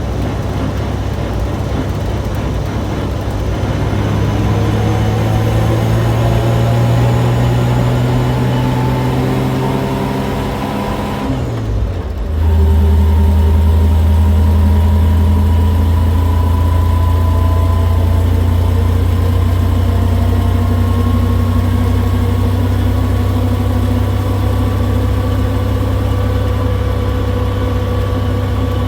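Kaiser M715 truck's Tornado overhead-cam six accelerating under load on its freshly rebuilt Holley 1920 carburettor. Its note climbs slowly, breaks off briefly with a drop in pitch about halfway through, then comes back louder and lower and climbs steadily again.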